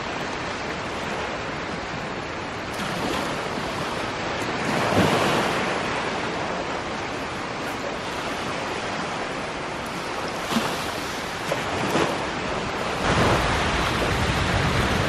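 Small waves washing and breaking on the beach, with wind buffeting the microphone; the low wind rumble gets heavier near the end.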